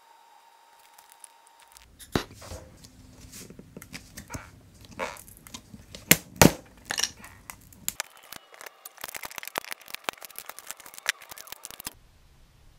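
Hands handling a cured epoxy-and-wood block stuck in its plexiglass mold: irregular clicks and knocks, two sharp hits about six seconds in, then a few seconds of dense, fast crackling. A faint steady tone is heard in the first second and a half.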